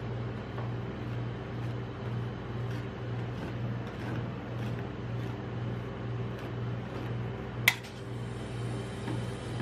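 Steady low hum of a rolled-ice-cream cold plate's refrigeration unit, with a slight even pulse, under faint scrapes and ticks of a metal spatula working the ice cream sheet on the steel plate. Near the end the spatula strikes the plate once with a sharp tap.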